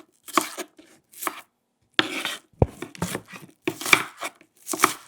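Kitchen knife cutting vegetables on a wooden cutting board: a series of separate, crisp cuts at an uneven pace, about seven or eight of them, with a deeper knock of the blade on the board about halfway through.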